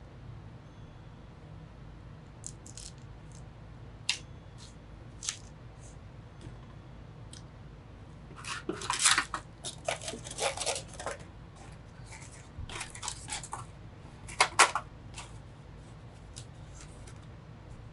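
Hands handling computer parts and packaging: scattered small clicks, then spells of crinkly rustling and scraping about halfway through, and two sharp clicks a little later.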